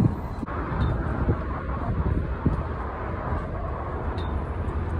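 Steady low rumble of road traffic outdoors, with a few faint high ticks.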